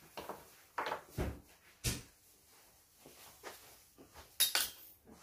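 Scattered knocks, thumps and rustles of a person moving about and walking away from a table. The loudest is a sharp double clatter about four and a half seconds in.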